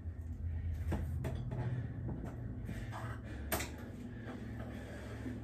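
A few light knocks and clicks of objects being handled at a TV cabinet, the sharpest about three and a half seconds in, over a steady low hum.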